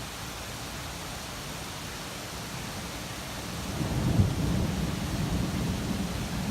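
Thunderstorm ambience: a steady hiss of rain with a roll of thunder that builds about halfway through, peaks in a sharp crack about four seconds in, and goes on rumbling afterwards.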